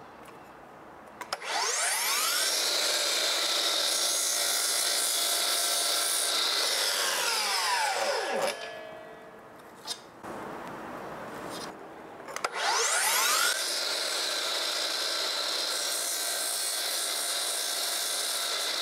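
Miter saw motor starting up twice with a rising whine, running steadily for several seconds each time while the blade makes shallow, depth-stopped miter cuts into a wooden muntin bar, then winding down with a falling whine.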